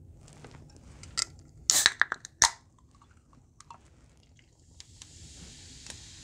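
Sharp clicks and cracks as an aluminium soda can and a glass bowl of ice cubes are handled and the can is opened, the loudest a quick cluster about two seconds in. From about five seconds, a steady hiss as carbonated Chilsung Cider Zero is poured over the ice and fizzes.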